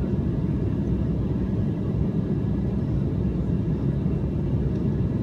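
Steady low rumble inside the cabin of an Embraer E195 airliner in flight: airflow noise and its two GE CF34-10E turbofans, heard on descent toward landing.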